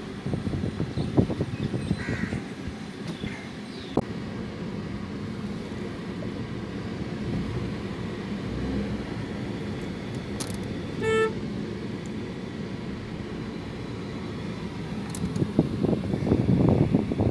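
Car driving slowly along a dirt road, heard from inside the cabin as a steady low rumble that grows louder and rougher near the end. A short vehicle horn toot about eleven seconds in, and crows cawing about two to three seconds in.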